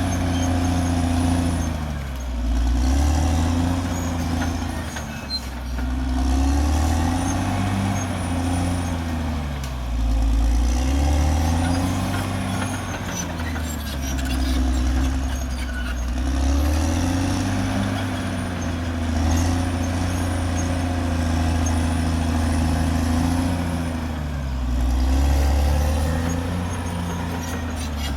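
Caterpillar D6R XL bulldozer's diesel engine running under load, its pitch rising and falling every few seconds as the machine works.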